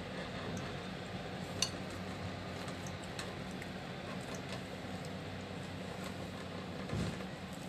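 Light clinks of a fork and ceramic spoon against a ceramic bowl while eating noodles, over a steady low hum, with a soft low thump near the end.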